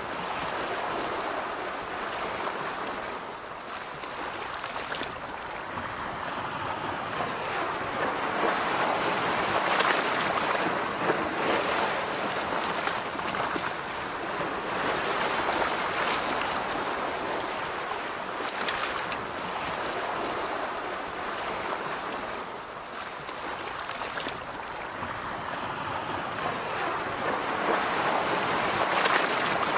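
Waves breaking and washing on a beach, a continuous surf rush that swells and eases about every ten seconds, with a few brief faint clicks mixed in.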